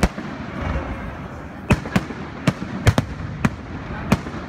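Fireworks display: aerial shells bursting with sharp bangs at an irregular pace, one at the start, then after a gap of over a second about seven more in quick succession.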